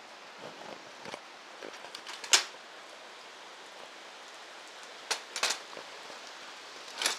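Folding webbed lawn chair being handled and opened, its frame giving a few sharp clacks, the loudest about two seconds in and a quick pair near five seconds. A steady hiss of rain runs underneath.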